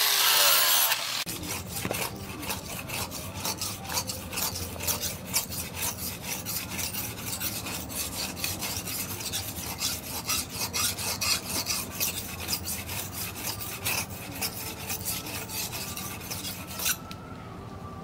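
An angle grinder grinds a steel knife blade for about the first second, then cuts off abruptly. Then the blade is stroked by hand back and forth on a sharpening stone, a steady run of scraping strokes a few times a second, which stop about a second before the end.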